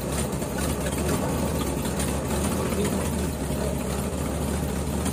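Ford F-350 truck engine idling steadily, cold and warming up after its first start following a tune-up, with a water pump that sounds like it's got rocks in it.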